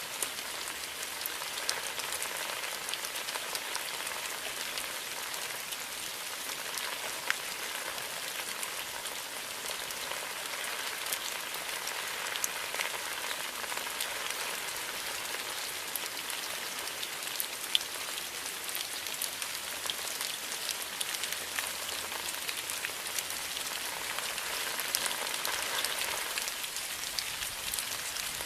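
Steady rain falling on bamboo leaves, an even patter with many small drop ticks.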